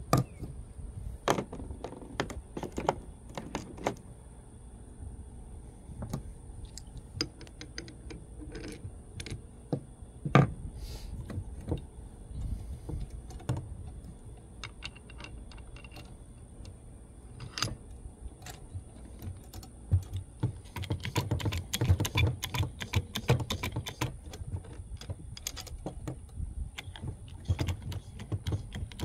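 Irregular small metallic clicks and clinks from working a hand hydraulic lug crimping press and its dies, with one sharper knock about ten seconds in and busier clicking in the second half.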